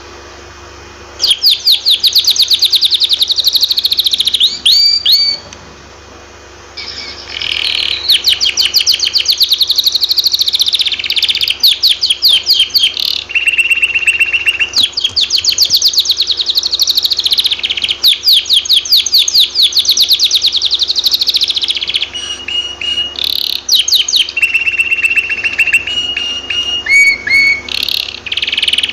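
Canary singing in long, fast rolling trills, each phrase many rapid notes, beginning about a second in with a brief pause a few seconds later. Steady held whistled notes come between trills in the second half.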